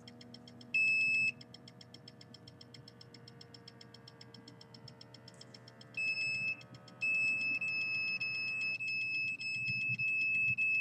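Electronic beeping from a small device: a short high beep about a second in, another near six seconds, then a long unbroken beep from about seven seconds on, over a faint, fast, even ticking.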